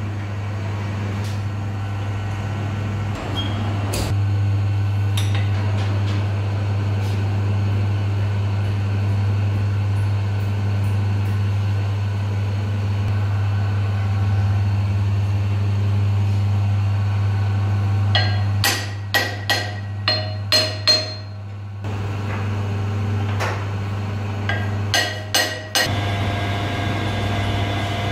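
A steady low electric hum, with runs of sharp metal taps and clinks about two-thirds of the way in and again near the end, as a clutch pressure plate is set and tightened in a lathe's four-jaw chuck.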